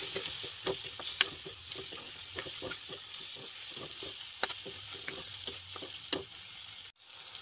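Oil sizzling steadily in a wok as chunks of meat and potato fry, with a spatula scraping and knocking against the pan every fraction of a second as they are stirred. The sound breaks off briefly near the end.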